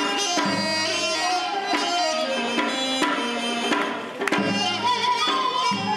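Traditional Korean ceremonial music: a sustained melody moving in stepped notes over drum strokes, with a sharp stroke just after the start and another about four seconds in.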